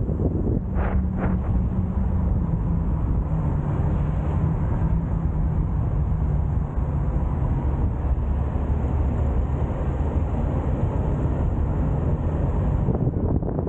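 Car driving along a road: steady engine and tyre rumble with wind noise on the microphone, and two brief whooshes about a second in.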